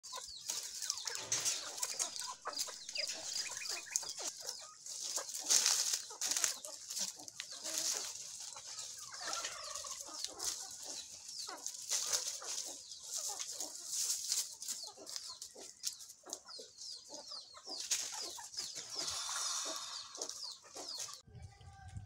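A flock of chickens clucking and calling, with many short sharp taps among the calls. The sound cuts off sharply near the end.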